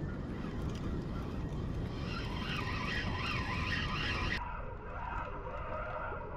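Steady outdoor rumble of wind and sea noise, with a wavering tone from about two to four seconds in. The high hiss drops away suddenly a little after four seconds.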